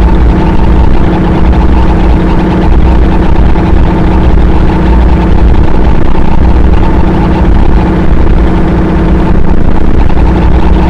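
Harsh noise music: a loud, dense, unbroken wall of distorted noise with a deep rumble underneath and a few steady droning pitches held throughout.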